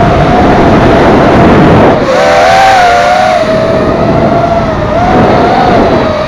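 FPV racing quadcopter motors and propellers whining, the pitch wavering up and down with throttle, over heavy wind rush. About two seconds in the rumble drops and the whine splits into several close pitches.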